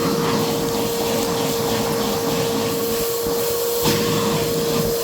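Vacuum cleaner running steadily with a constant high-pitched hum over a rushing of air, sucking up dead leaves and twigs.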